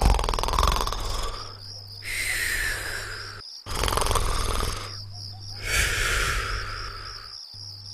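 Snoring: four drawn-out snores about two seconds apart, each sliding down in pitch, over a steady chirping of crickets.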